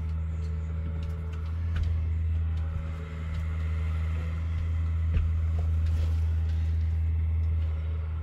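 Steady low engine hum heard from inside a vehicle's cabin, with a few faint knocks and ticks scattered over it.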